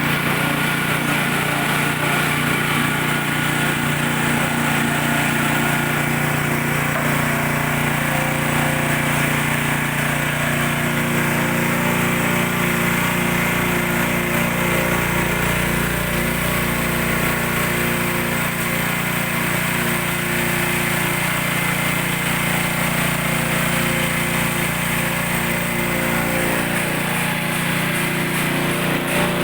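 Coconut milk press machine running steadily, its motor giving a continuous mechanical hum.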